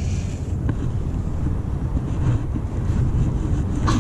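Wind buffeting the camera's microphone, a steady low rumble, with a faint knock about two-thirds of a second in and fabric rubbing over the microphone near the end.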